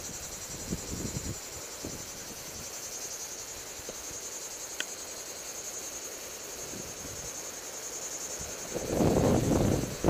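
Cicadas buzzing in a steady, high-pitched, fast-pulsing drone, with a louder rumbling rush of wind or handling noise on the microphone near the end.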